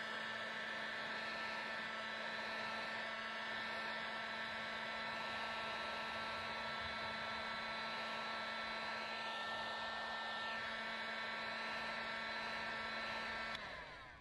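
Steady machine hum with a constant low drone and several constant higher whining tones, which cuts off abruptly near the end.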